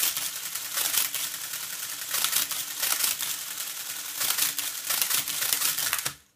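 Monroe CSA10 electro-mechanical calculator running an automatic division: a fast, dense clatter of levers and cams over a steady motor hum as the carriage steps along. It stops suddenly near the end, when the division is finished.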